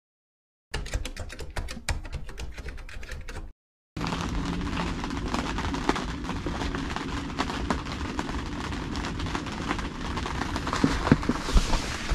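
Tent fabric flapping and cracking hard in strong gusting wind, over a low rumble of wind on the microphone. The sound starts suddenly under a second in, drops out for a moment about three and a half seconds in, then runs on with sharper cracks near the end.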